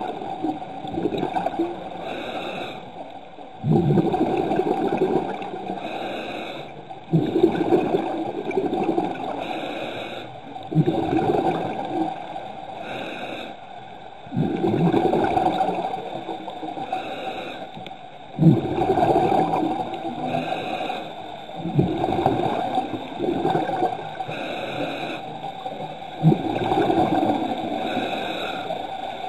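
Scuba diver breathing through a regulator underwater: a short hiss on each inhale, then a bubbling rush of exhaled bubbles that fades, repeating about every three to four seconds, eight breaths in all.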